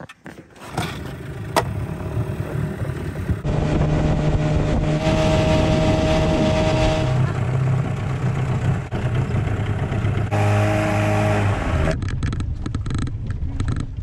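Small outboard motor on a jon boat, hand-started with its pull rope because the electric starter will not engage. It then runs loudly under way, its pitch shifting several times as the throttle changes.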